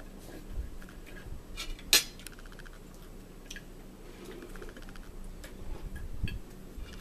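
Forks tapping and scraping on china dinner plates during a meal, in scattered light clinks, with one sharp clink about two seconds in.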